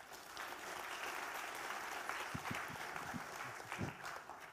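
Audience applauding at the end of a talk, a steady dense clapping that dies away near the end.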